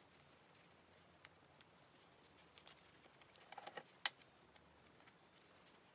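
Faint rustling and crinkling of thick cotton canvas fabric being squeezed and worked right side out through a narrow opening, with a short cluster of rustles and a single sharp click about four seconds in.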